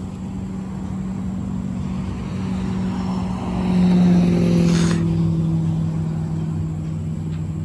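An engine running steadily. It swells louder about four seconds in and settles at a slightly lower pitch.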